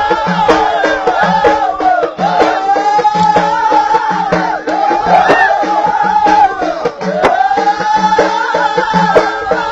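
Ahidous music: a group of voices singing in repeated phrases over a steady beat of bendir frame drums.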